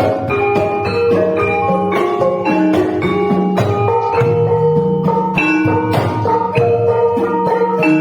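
Gamelan ensemble playing: struck metallophones ringing in a steady stream of notes over lower sustained tones.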